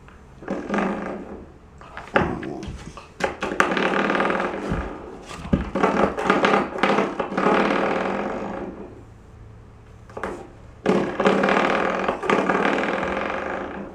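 Spring doorstop being knocked and bitten by a Labrador puppy, twanging with a buzzing boing that dies away slowly, several times over, with sharp knocks as it is struck.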